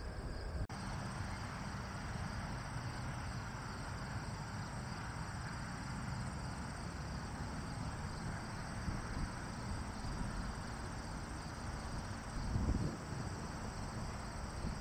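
Steady outdoor airfield ambience: a low rumble of distant jet engines with wind on the microphone, and insects chirping steadily above it. A gust swells the rumble briefly near the end.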